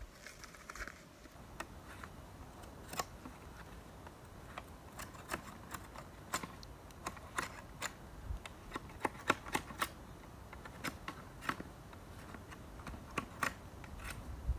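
Knife shaving bark off a green wooden stick: a run of short, irregular scraping clicks, sparse at first and coming thicker after about five seconds.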